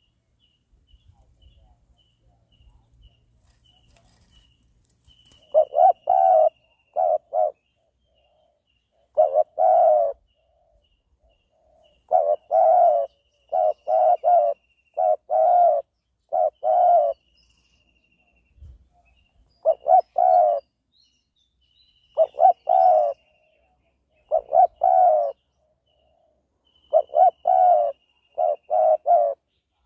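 Spotted dove cooing: short phrases of two to four coo notes, one phrase every couple of seconds. A faint, high, repeated chirping note runs behind.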